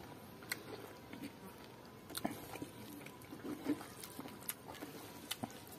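Close-up mouth sounds of someone chewing a mouthful of pork and rice: wet smacks and soft clicks scattered irregularly, a few louder ones.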